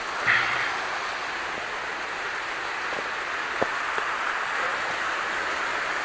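Waterfall water rushing steadily, with a few light knocks about three to four seconds in.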